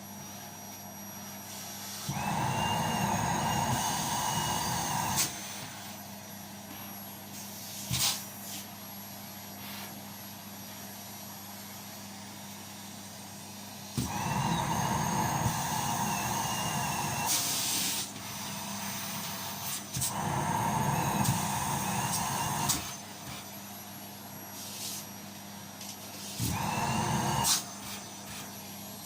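Vacuum cleaner picking up balls, its motor surging louder four times for one to four seconds at a time, with a whine that rises as it speeds up. A few sharp clicks come in between.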